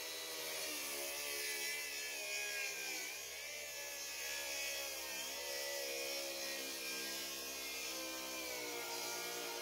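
Handheld electric sander running over a maple slab, its motor whine steady but wavering slightly in pitch.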